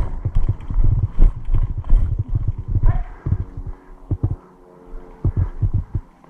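Irregular low thumps and knocks close to the microphone, dense for about three seconds and then sparser, typical of a player moving with a body-worn camera, footsteps and gear knocking. A faint steady hum comes in about halfway through.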